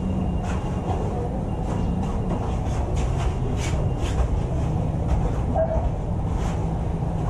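Steady low rumble, with light irregular scuffs and taps of two grapplers shifting on a foam mat.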